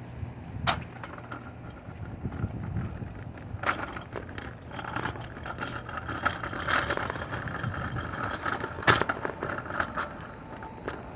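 Outdoor air-conditioning condensing units running with a steady low hum, overlaid by sharp clicks and scraping handling noise, the loudest click near the end.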